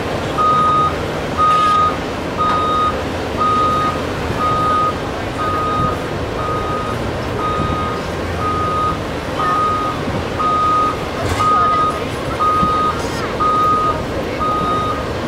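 Caterpillar excavator's travel alarm beeping steadily, one high beep about every second.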